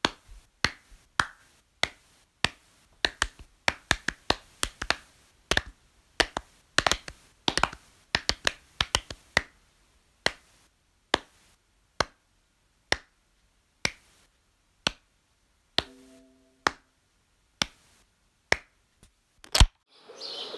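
One pair of hands clapping in single sharp claps, quick and irregular for the first half, then slowing to about one clap a second, with a brief low tone about three quarters of the way through. Near the end a soda can's ring-pull cracks open and starts to fizz.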